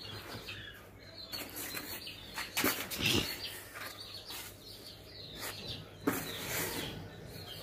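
Hands digging and scooping through dry sawdust in a cardboard box: an uneven rustling and scraping, with louder scrapes about two and a half seconds in and again around six seconds.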